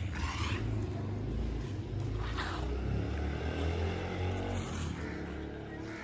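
An engine running steadily, its pitch drifting a little in the middle.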